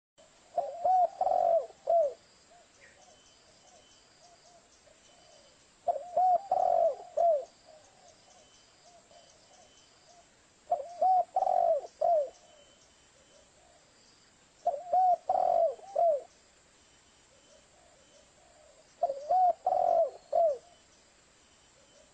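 Spotted dove cooing: a short phrase of several low coos, repeated five times about every four to five seconds.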